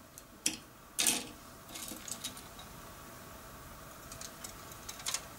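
Handling of plastic model-kit parts sprues in their clear plastic bag: light clicks of plastic on plastic and crinkling of the bag. The loudest rustle comes about a second in, with a few smaller clicks later.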